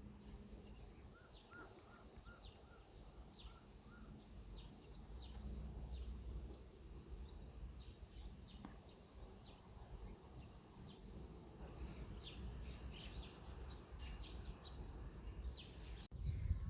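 Faint birdsong: many short, high chirps from small birds, with a run of about six evenly spaced lower notes about a second in, over a low rumble.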